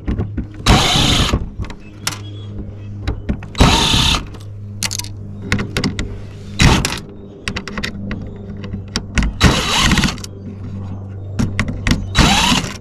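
Power drill/driver backing out screws in short bursts, about five times, the motor whirring up and down in pitch each time, over a steady low hum.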